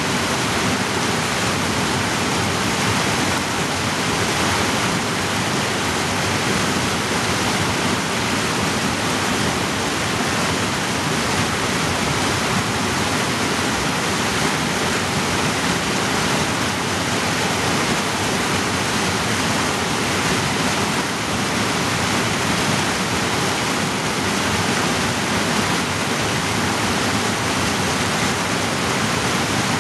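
Mountain creek cascading over boulders in a narrow rock gorge: a steady, loud rush of white water.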